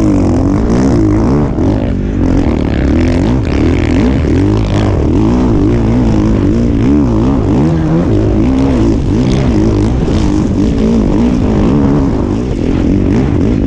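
Dirt bike engine heard close up from an on-board camera, revving hard with its pitch rising and falling over and over as the rider accelerates, shifts and backs off through the ruts of a sandy motocross track.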